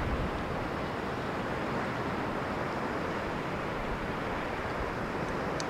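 Steady rushing noise of wind on the microphone and sea water around a kayak on open water, with a low rumble.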